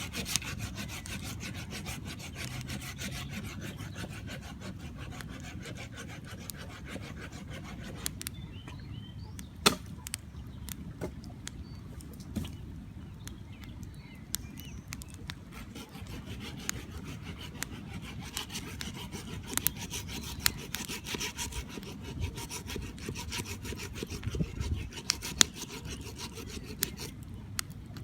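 Campfire burning, crackling with many irregular small snaps and a few louder pops.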